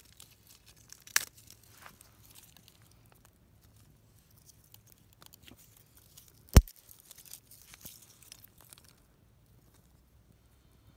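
Kindling crackling and snapping: scattered small crackles, a sharp snap about a second in and a louder one about six and a half seconds in, dying away near the end.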